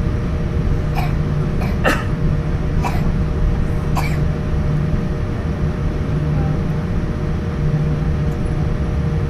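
Steady cabin rumble of a Boeing 787-10 taxiing, with a low hum and engine tones, heard from inside the passenger cabin. Several short sharp sounds stand out between about one and four seconds in.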